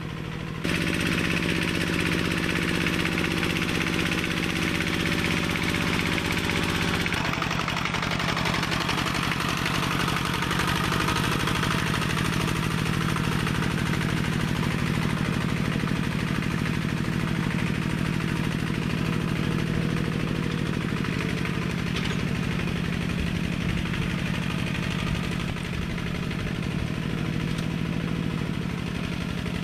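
Homemade mini tractor built from a walk-behind tractor, its engine running steadily as it pulls a tine cultivator through the soil. The engine note shifts about seven seconds in.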